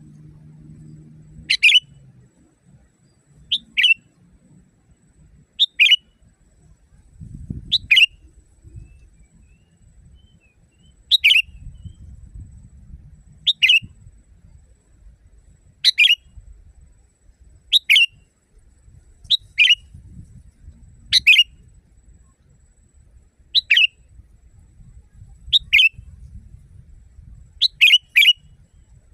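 Sooty-headed bulbul (kutilang) giving short, sharp calls about every two seconds, each a quick falling note. Some come as doubles.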